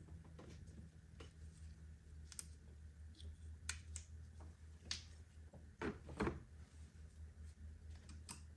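Scattered light clicks and taps of hand tools and metal parts as a bolt is tightened to compress the timing belt tensioner on a VW 1.8T engine, with a cluster of louder knocks about six seconds in. A steady low hum runs underneath.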